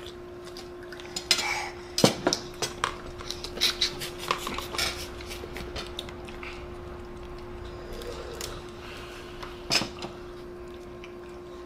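Tableware and crab shells being handled during a seafood-boil meal: scattered sharp clicks and clinks of a spoon in a bowl of sauce, cutlery, plates and crab legs, busiest in the first few seconds with one more near the end, over a steady low hum.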